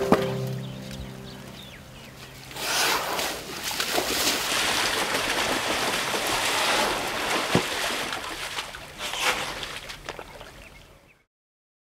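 Elephants moving in a wet, muddy puddle: irregular splashing and slopping with a few sharp clicks, following the fading tail of background music. It fades and cuts off shortly before the end.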